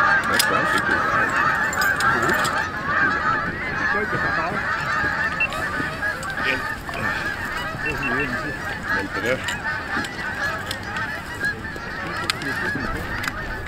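A large flock of geese honking, many calls overlapping into a continuous chorus that grows gradually fainter.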